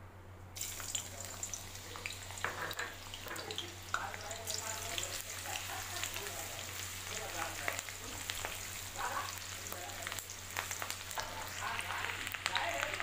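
Chopped onion sizzling in hot oil in a metal kadhai, stirred and scraped with a slotted spatula. The sizzle starts suddenly about half a second in as the onion goes into the oil, with small clicks and scrapes from the spatula throughout.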